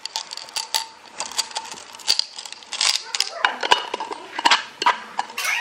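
Glass marbles clinking as they are dropped by the handful into a jar: a quick, irregular run of small hard clicks.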